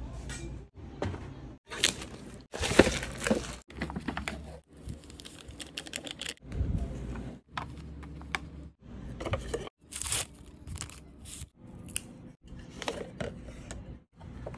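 Cup ramen packaging crinkling and tearing as the paper lid of a Nongshim Saeutang cup is peeled back, with small clicks of handling. It comes in short bursts broken by abrupt silences.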